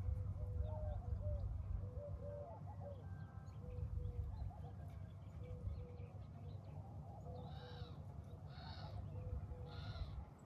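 Birds calling, with many short chirps throughout and three louder calls about a second apart near the end, over a steady low rumble.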